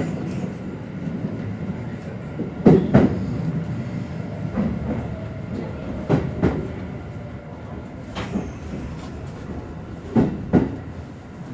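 Kintetsu Series 21 electric train running, heard from inside the car: a steady rumble with paired wheel clicks as the bogies pass rail joints, the pairs coming further apart as the train slows.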